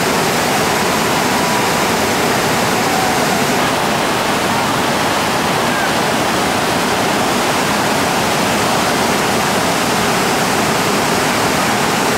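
Loud, steady roar of a big whitewater rapid, with river water pouring down rock and crashing into a breaking wave.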